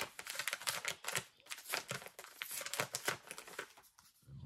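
Paper crinkling and rustling with small tearing crackles as a wrapped item is unwrapped by hand, a rapid run of crackles that quietens near the end.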